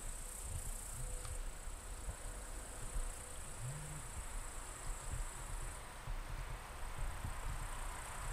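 Insects in the meadow grass chirring steadily, a continuous high-pitched trill, with an irregular low rumble underneath.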